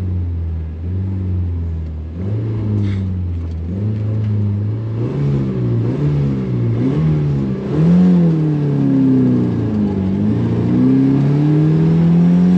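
Supercharged Toyota 3RZ four-cylinder engine pulling under hard acceleration, heard from inside the cab. The revs climb and fall several times, dip low about ten seconds in, then climb again.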